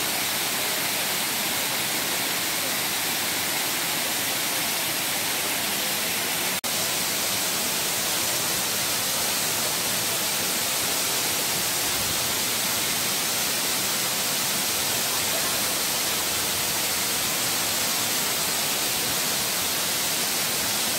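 Steady rushing roar of a waterfall spilling down a broad rock face, an even hiss with no rhythm, broken by a momentary dropout about six and a half seconds in.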